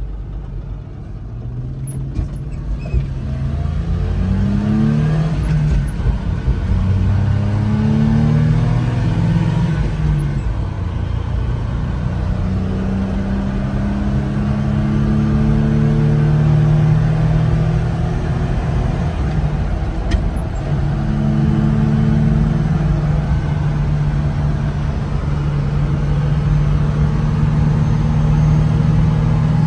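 1998 Suzuki Carry kei truck's 660 cc three-cylinder engine, heard from inside the cab, accelerating with its pitch rising several times in the first ten seconds or so. It then holds a steady cruise, with a brief dip about twenty seconds in.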